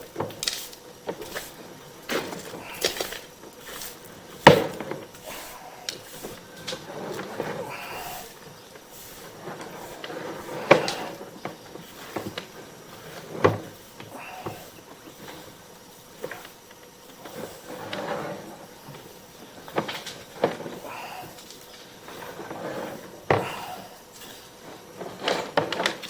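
Sewer inspection push camera and its cable knocking and clicking as it is fed through a sewer lateral line: irregular knocks, a few of them sharper and louder.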